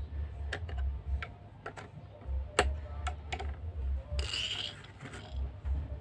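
Small hand-handling clicks and knocks of a screwdriver and a plastic wall-switch plate, about ten of them, the loudest about two and a half seconds in, followed by a second-long scraping rustle a little after four seconds.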